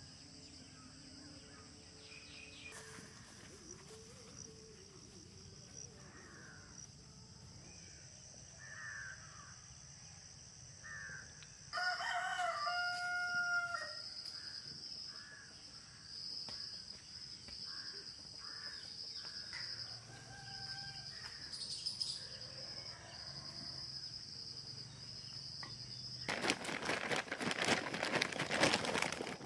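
A rooster crowing once, about twelve seconds in, over a steady high insect drone and scattered short bird calls. A dense burst of noise comes near the end.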